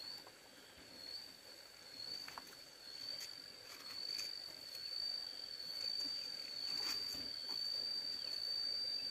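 An insect giving one unbroken, high-pitched trill that slowly grows louder, with a few faint ticks behind it.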